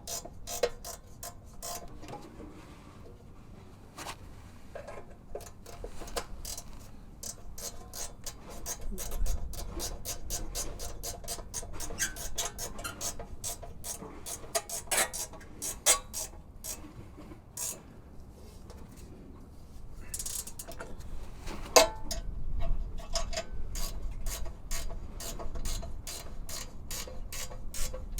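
Hand ratchet clicking in quick runs as the rear brake caliper bolts are tightened down, with short pauses between runs.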